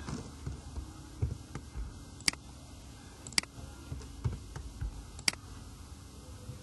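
Computer mouse clicking: three sharp clicks spaced one to two seconds apart, with faint low knocks between them.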